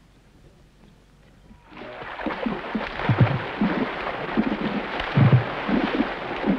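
Near silence, then about two seconds in, water drumming: several people strike the surface of a river with their hands and arms. Repeated hollow, low plunging thumps sound over continuous splashing, in the rhythmic pattern called 'beating in threes'.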